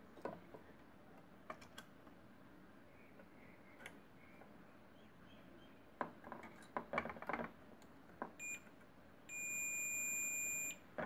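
Digital multimeter in continuity mode beeping: a short beep about eight seconds in, then a steady high beep of about a second and a half near the end, which signals a near-zero resistance between the probes, here the VRM MOSFET drain's short to ground. Before the beeps, light clicks and scrapes of the probe tips on the motherboard.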